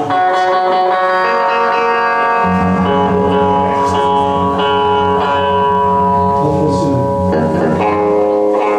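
Rock band playing live: guitar chords ring and sustain, and a bass note comes in about two and a half seconds in and holds under them.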